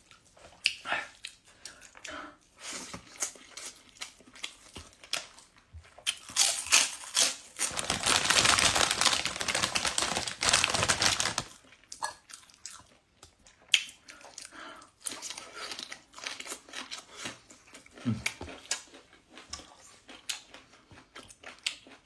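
Eating by hand: chewing and lip smacks with fingers scraping rice on a plate, in a run of small clicks. Around the middle comes a loud crinkling noise lasting about four seconds.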